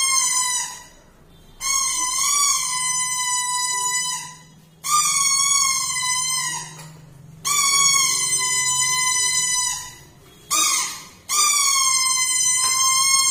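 Plastic toy horn blown in a run of long, shrill blasts, each held steady for about two seconds with a slight wobble in pitch and separated by short pauses for breath; a short breathy puff comes just before the last blast.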